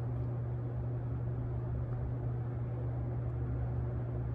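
Steady low hum with a faint hiss of room noise; nothing else happens.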